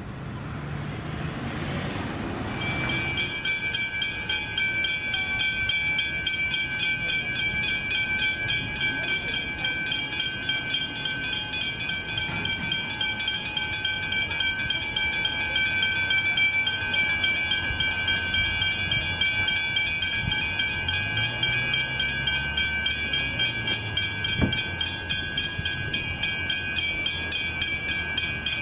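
Electronic level crossing warning bells start about two and a half seconds in and then ring on in a rapid, even pulse, the signal that a train is approaching the crossing. A low vehicle rumble rises underneath about twenty seconds in, and there is one sharp knock near the end.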